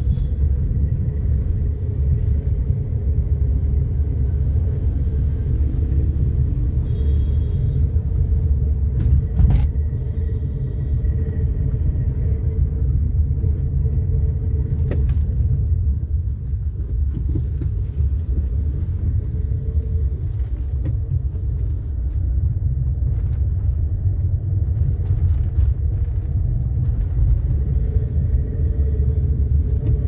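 Steady low rumble of a car's engine and tyres heard from inside the cabin while driving slowly in traffic, with a sharp knock about nine seconds in and a few fainter clicks.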